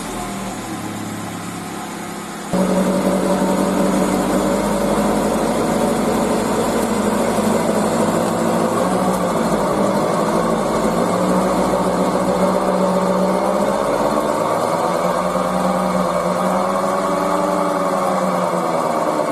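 Hyundai Elantra Yuedong wheel bearing droning while the car is driven: a loud steady hum of several tones that comes in abruptly about two and a half seconds in and wavers in pitch in the second half. The bearing is worn and running short of grease.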